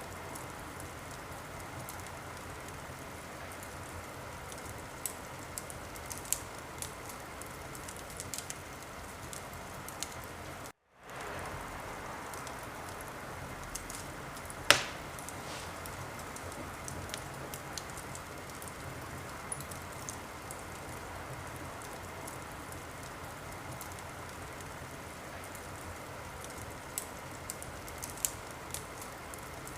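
Wood fire in a fireplace burning with a steady hiss and scattered small crackles, and one loud sharp pop about halfway through. The sound cuts out for a split second about a third of the way in.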